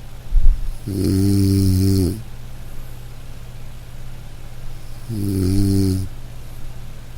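A person snoring loudly: two long snores about four seconds apart, each lasting about a second, over a steady low hum. A short, deep thump comes just before the first snore.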